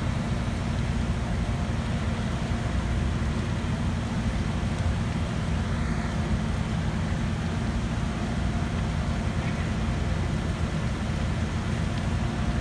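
Construction machinery engine running steadily, a continuous low rumble with no breaks.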